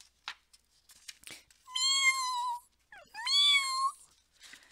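A woman imitating a cat: two high, drawn-out meows, a little over a second apart.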